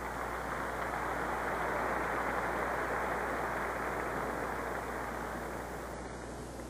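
Crowd applauding, swelling over the first couple of seconds and then slowly dying down.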